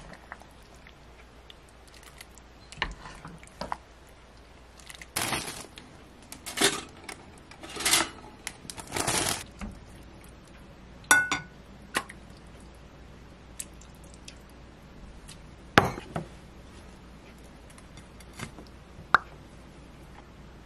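Wooden spoon stirring and scooping thick vegetable soup in a pot, then serving it into an enamel bowl. There are several scraping swishes, followed by separate sharp knocks and two short ringing clinks of the spoon against the pot and bowl; the loudest knock comes about two-thirds of the way in.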